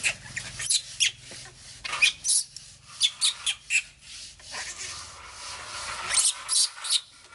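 Terry towel rubbed in short, brisk strokes, drying a wet baby monkey after its bath; the strokes come in two bunches with a quieter pause between.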